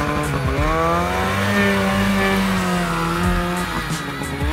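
Polaris Pro RMK snowmobile's two-stroke engine revving up as the sled pulls away through deep snow, holding a high pitch, then dropping briefly and rising again near the end.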